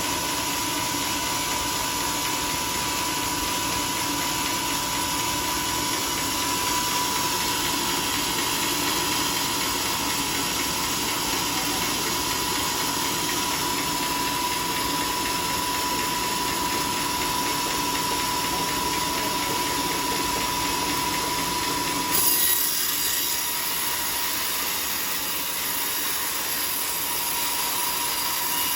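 Sawmill running and sawing a teak log, a steady mechanical noise with a thin high whine. About three-quarters of the way through, the sound changes abruptly with a short louder burst, and the whine drops out.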